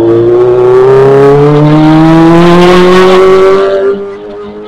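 Kawasaki ZX-25R's 250 cc inline-four engine accelerating hard, its pitch climbing steadily, then falling away sharply nearly four seconds in as the throttle closes.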